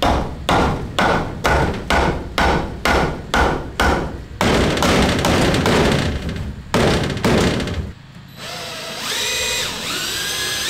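About ten hammer blows into wood framing, roughly two a second, each with a short metallic ring. Then a power drill runs in long stretches, its motor whine rising and falling near the end.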